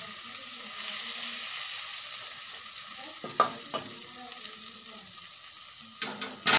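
Boiled eggs and onions sizzling in oil in a kadai while a spatula stirs them. The spatula clicks sharply against the pan twice about halfway through and knocks on it several times near the end.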